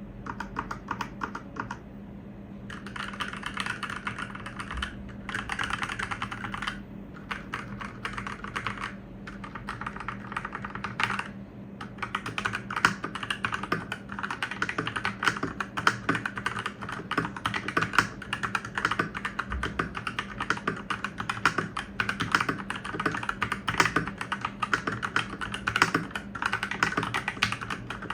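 Fast, continuous typing on an Ajazz NK68 mechanical keyboard with linear red switches: a dense run of keystroke clacks, broken by a few brief pauses in the first dozen seconds.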